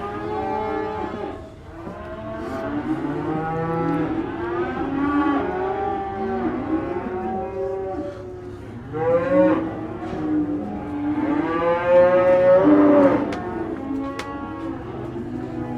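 Cattle mooing and bawling, many overlapping calls of different pitches. The loudest come as a long moo about nine seconds in and another around twelve seconds.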